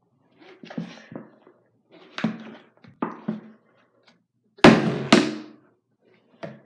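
A part-filled plastic water bottle being flipped and thunking down on a hard surface several times, the two loudest landings about half a second apart near the end. The landings are loud enough to call for a towel underneath.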